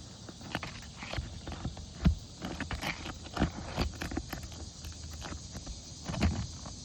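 Irregular knocks and scrapes of a roof snake and hatchet working a roofing nail loose under an asphalt shingle, the heaviest knocks about two seconds in and near the end. Insects chirr steadily in the background.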